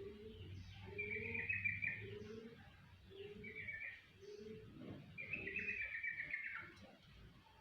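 Young long-tailed shrike (cendet) practising its song: four short, scratchy chattering phrases about a second apart, the last one the longest. A dove coos repeatedly in the background.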